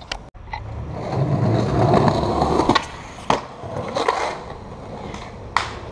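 Skateboard wheels rolling over a concrete sidewalk with a steady rumble, loudest in the first half, and several sharp clacks of the board hitting the pavement, the last one near the end.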